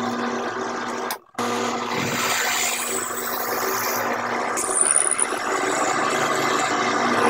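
Drill press running steadily, drilling into a wooden block, with a constant motor hum. The sound drops out briefly a little over a second in.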